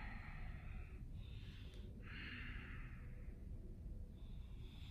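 A man breathing audibly, a few deep breaths in and out, while holding a yoga lunge stretch.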